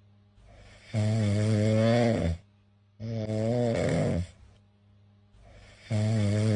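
Cat snoring in a steady rhythm: three long, rasping snores about three seconds apart, with faint breaths between them.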